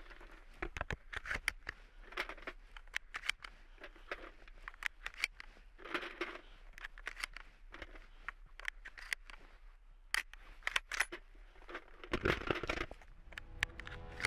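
Panzer Arms M4 12-gauge semi-auto shotgun being loaded by hand, one-ounce shotshells pressed one after another into its tube magazine, giving an irregular run of sharp clicks with handling noise between them.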